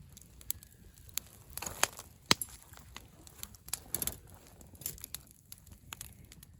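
Wood campfire crackling, with irregular sharp pops and clicks.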